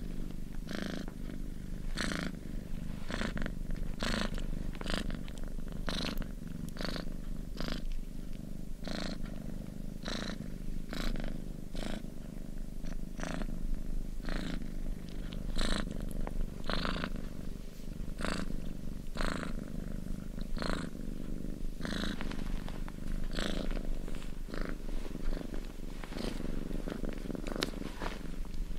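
Domestic cat purring steadily, a low continuous rumble with a breathy rasp coming back every second or so.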